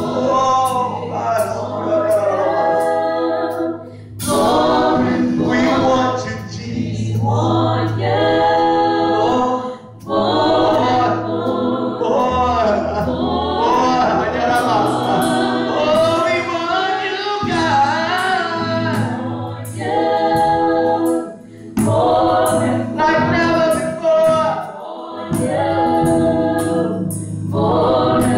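Women's voices singing gospel into microphones over the church PA, in phrases a few seconds long with short breaks between, over sustained low keyboard notes and light drum or cymbal taps.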